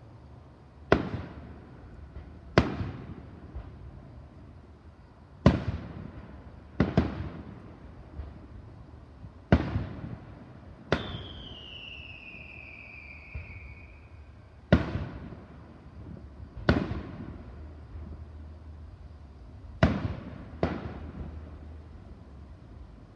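Aerial firework shells bursting, about ten sharp bangs one to four seconds apart, each trailing off in an echo. About eleven seconds in, a whistle glides down in pitch for about three seconds.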